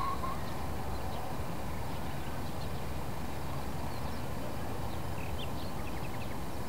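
Steady outdoor background ambience, an even low hiss, with a few faint, short, high chirps in the second half.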